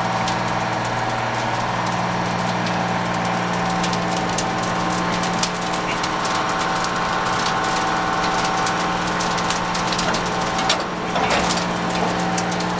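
A steady engine drone, even and unchanging, mixed with the crackling and popping of a large wood fire of burning pallets and OSB sheeting. The crackles grow thicker from about four seconds in.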